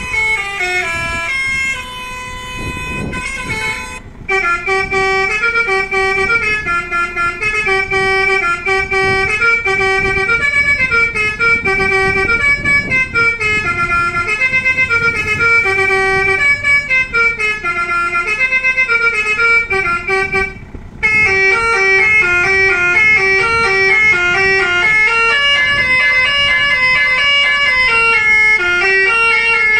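A 500-watt electric basuri musical horn playing a melody, one note after another, several notes a second. The tune stops briefly about four seconds in and again about twenty-one seconds in.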